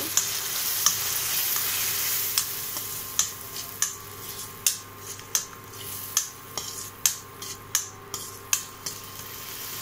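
Tomato-onion masala with turmeric sizzling in oil in a steel kadai while a metal spoon stirs it. From about three seconds in, the spoon knocks and scrapes against the pan in quick sharp strikes, about two a second, over the steady sizzle.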